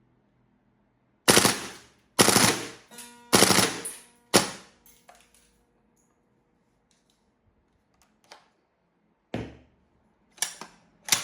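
Golden Eagle M16A1 airsoft rifle firing four short full-auto bursts in quick succession, each a rapid rattle of shots. Several shorter, sharp single reports follow later.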